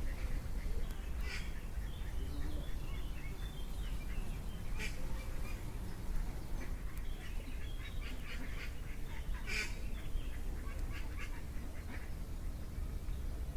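Ducks calling in short, scattered quacks and chatter, a few sharper calls standing out, over a steady low rumble.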